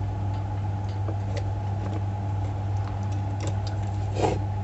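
Scattered light clicks and taps from small plastic and metal parts of an electric kettle being handled, over a steady low hum; a slightly louder click comes near the end.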